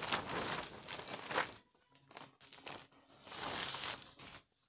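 Footsteps and rustling handling noise in uneven bursts, falling quiet shortly before the end.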